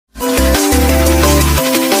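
Electronic dance music with a heavy bass line and a melody of short synth notes, starting suddenly.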